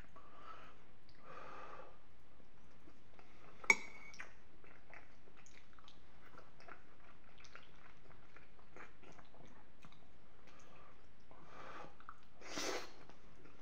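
Close-miked chewing of soft pasta with peas in béchamel sauce: wet mouth sounds and small clicks throughout. About four seconds in, one sharp clink of the metal spoon with a brief ring, and a louder noisy mouth sound near the end.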